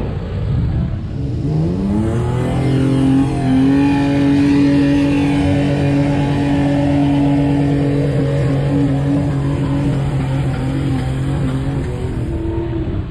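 An off-road 4x4's engine revs up over a second or two, holds at high revs steadily for around ten seconds, then drops off near the end.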